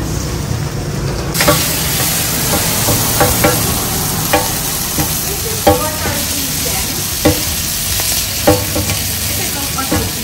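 Food frying and sizzling in a hot pan while a metal spatula strikes and scrapes it, a sharp clink every second or so. The sizzle comes in suddenly about a second in.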